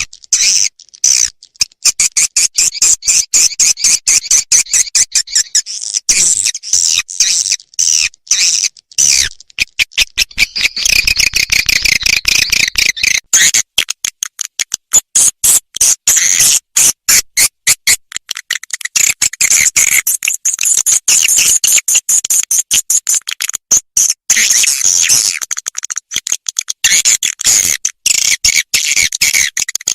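Recorded swiftlet calls played as a lure: a fast, unbroken stream of sharp high chirps and twittering clicks that comes in bursts of changing pace.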